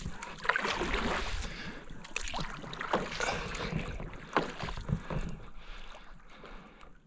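Irregular splashing and sloshing of strokes in river water from a small paddled boat being worked upstream, with scattered knocks of the pole or paddle against the boat. Wind rumbles on the microphone underneath.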